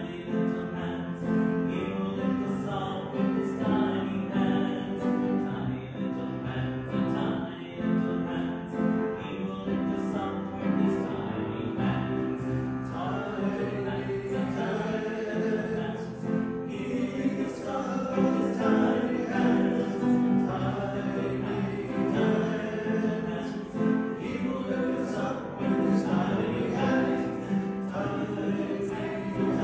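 Mixed church choir singing an anthem, with held notes and changing harmonies throughout.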